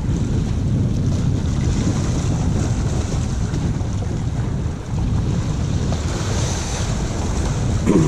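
Wind buffeting the microphone over waves washing against shore rocks, a steady rushing noise, with a brief sliding sound right at the end.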